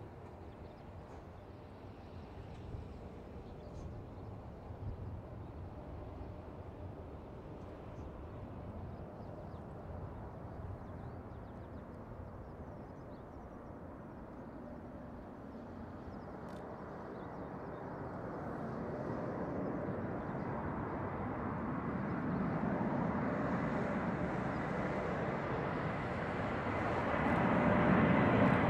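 Boeing 747-400F freighter on final approach, its four turbofan engines a faint low rumble that grows steadily louder as the jet nears. A steady engine whine comes in over the last ten seconds or so.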